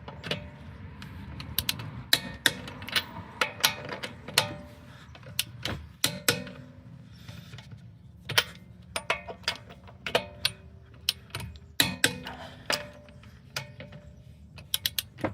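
Torque wrench tightening wheel lug nuts to 80 foot-pounds: many sharp ratcheting clicks and knocks at an uneven pace, some with a short metallic ring.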